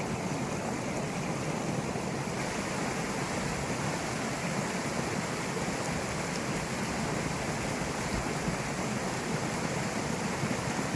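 A Highland burn in spate: a steady rush of fast-running stream water.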